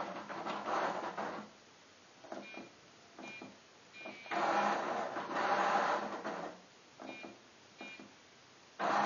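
Milton Bradley Milton chess computer's motorised under-board mechanism whirring in three bursts as it moves pieces across the board. A few faint clicks come between the bursts as its keypad buttons are pressed.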